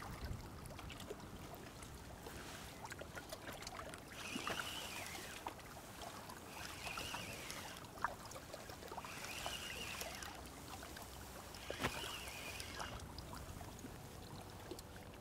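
Fixed-spool fishing reel being wound in short bursts about every two and a half seconds while a hooked fish is pumped in on a bent feeder rod. Each burst rises and falls in pitch, with a few sharp clicks in between.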